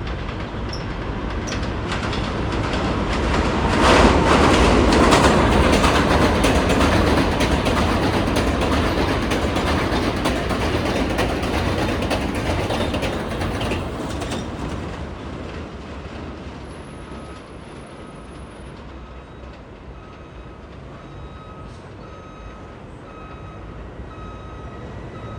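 New York City subway train on the J/M/Z line running over the elevated steel track, rumbling with rapid wheel clicks. It swells to its loudest about four seconds in and dies down after about fourteen seconds.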